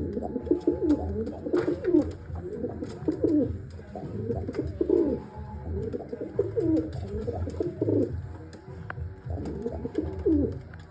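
Pigeon cooing over and over in low, wavering phrases every second or two, over a steady low hum, with faint ticks scattered through.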